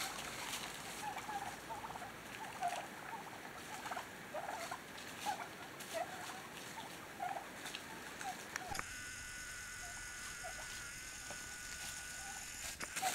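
Wild turkeys in a flock giving a string of brief calls, roughly one or two a second.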